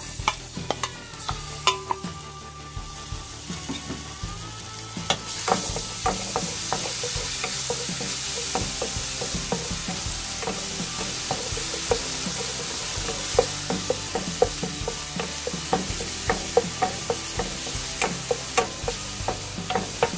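Ginger-garlic paste sizzling in hot oil in a pan while a wooden spatula stirs it and taps against the pan, frying off the paste's raw smell. The sizzle comes up strongly about five seconds in, with frequent sharp clicks of the spatula over it.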